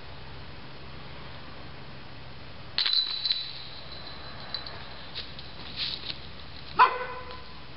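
A flying disc striking a disc golf basket: a sudden rattle of chains with a high ringing note about three seconds in, then a few light clinks, and a sharper metallic clang that rings on briefly near the end.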